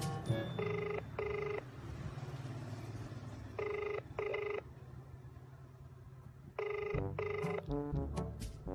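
Telephone ringback tone heard over a phone's speaker: three double rings about three seconds apart as an outgoing call rings at the other end. Background music with a low beat runs underneath.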